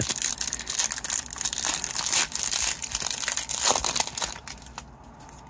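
Foil wrapper of an Upper Deck hockey card pack crinkling and tearing as it is opened, a dense crackling rustle that stops about four and a half seconds in.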